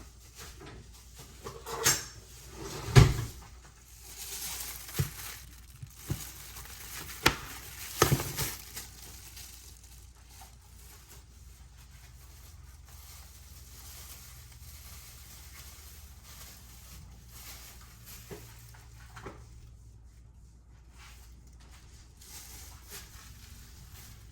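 Knocks and clatter of corn and kitchen things being handled and set down, a quick run of them in the first nine seconds with the loudest about three seconds in, then only a few faint taps.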